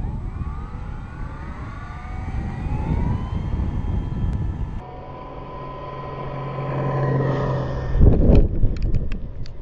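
Electric motor and propeller of an FMS Bf 109 RC model plane whining and rising in pitch as it is throttled up for the takeoff run. After a sudden change the whine holds steady while the plane flies. A loud rushing burst comes about eight seconds in, then a few sharp clicks.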